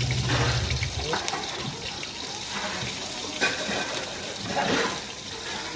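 Hot oil sizzling in woks as bánh xèo are deep-fried, with several brief surges of louder sizzling as filling and batter go into the oil. A low hum stops about a second in.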